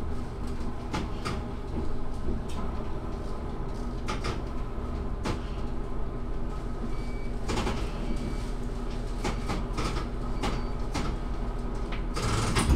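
Diesel railcar's engine idling steadily while the train stands at a station, heard from inside the car, with scattered clicks and knocks. Two short high beeps come about a second apart past the middle, and a loud burst of hiss near the end.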